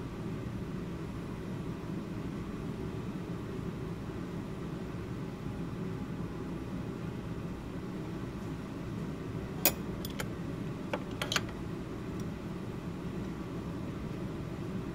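Steady low hum of room noise, with a handful of short, sharp clicks about ten to eleven seconds in.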